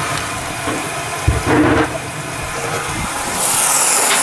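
Bathroom sink tap running water into the basin during a leak test of a newly fitted pop-up drain. It grows to a louder, brighter hiss about three and a half seconds in. A short thump comes a little over a second in.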